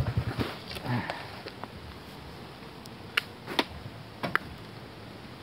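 A motorcycle engine dies away in the first half second, leaving a faint low hum and a few sharp clicks and knocks a few seconds in.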